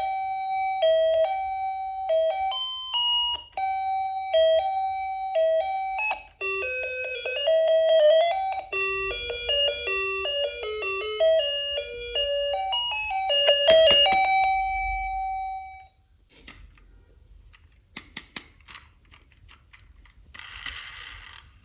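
A toy's electronic sound chip playing a simple beeping tune of stepping notes, which stops abruptly about sixteen seconds in; a few sharp clicks follow.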